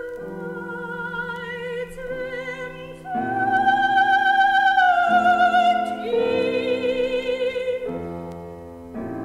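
Soprano singing a classical art song with piano accompaniment, played from a vinyl record. About a third of the way in she holds a loud high note with wide vibrato, then moves to a lower note and stops near the end, leaving the piano alone.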